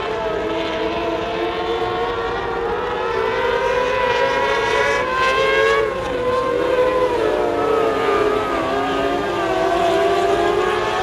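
A pack of mini sprint race cars running on a dirt oval, several high-revving engines at once, their pitches rising and falling and overlapping as the cars lift and accelerate through the turns.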